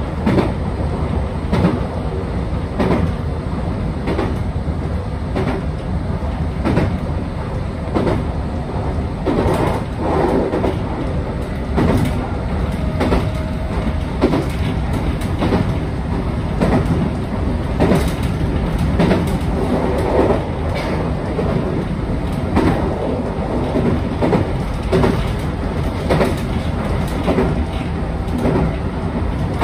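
JR West 221 series electric train running along the track, heard from inside the leading car: a steady rumble of the wheels with repeated clacks over rail joints, roughly every second or so.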